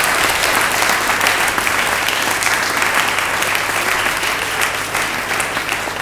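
Audience applauding, dense clapping that begins to thin out toward the end.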